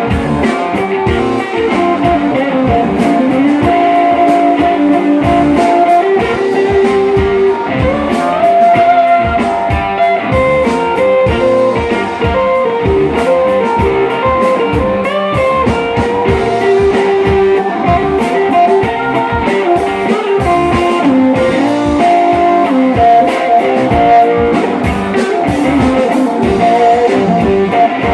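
Live blues-rock band playing: two electric guitars over electric bass and a drum kit, with a steady beat.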